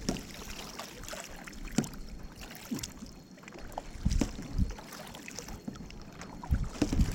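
Canoe paddling: paddle strokes splashing and dripping in the water, with scattered small knocks and clicks. A few louder low thumps come about four seconds in and again near the end.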